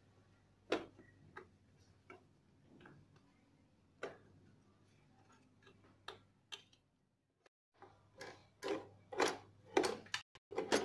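Scattered clicks and taps of hard plastic parts, a motorcycle's headlamp cowl and wire connectors being handled and pushed into place, with a quicker run of clicks near the end.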